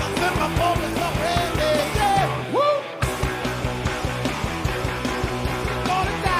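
Garage punk rock band playing live at full volume: drums, distorted guitars and a voice singing and yelling in sliding pitches. About three seconds in, the sound changes abruptly to a dense, driving drum-and-guitar passage.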